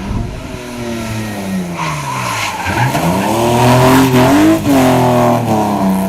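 Rally car engine at high revs: the engine note falls away over the first couple of seconds, then climbs hard with brief dips at the gear changes, loudest about four to five seconds in. Tyre and skid noise rises under it from about two seconds in.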